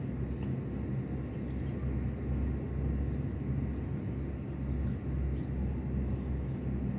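Low, steady rumble of wind buffeting the microphone, with a few faint ticks higher up.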